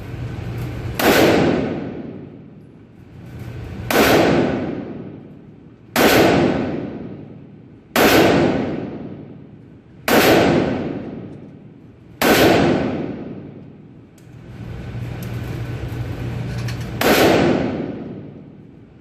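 Steyr AUG A3 rifle in .223 Rem/5.56x45mm fired seven times in slow, deliberate shots, about two seconds apart, with a longer pause before the last. Each shot rings on in a long echoing decay.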